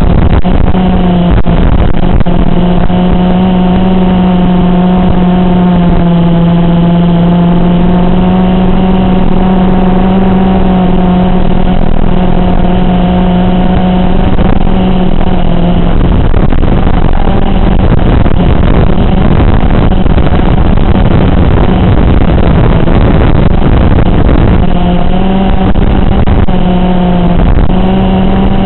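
A 5-inch FPV racing quadcopter's brushless motors and propellers buzzing steadily in flight, the pitch wavering with throttle. The buzz turns rougher and noisier about halfway through, then settles back to a steady tone near the end.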